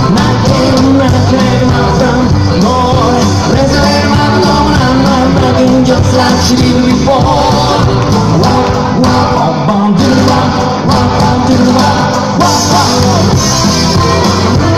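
Live rock and roll band playing: electric guitar, bass guitar and drum kit at full volume, with a male singer singing over them.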